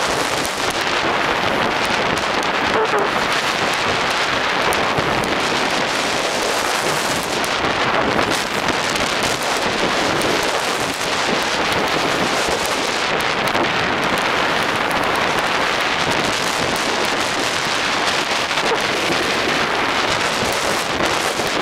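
Steady rushing hiss of snow sliding under a moving snowboard and wind buffeting the microphone, as the camera rides down a packed snow slope close beside a snowboarder.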